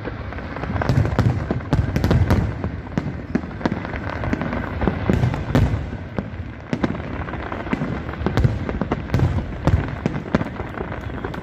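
Fireworks display at full barrage: many aerial shells bursting at once, deep booms overlapping with sharp cracks and crackling pops, with no pause.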